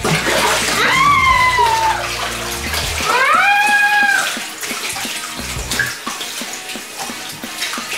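Thick slime being poured and sloshed, a wet splashing and squelching. It is broken twice in the first half by a short high shriek that rises and then falls.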